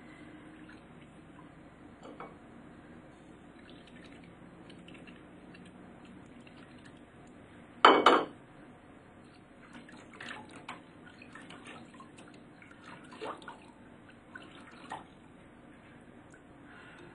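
Kitchenware being handled on a tabletop: faint taps and clinks, one loud sharp clatter about eight seconds in, then a scatter of smaller knocks and clicks.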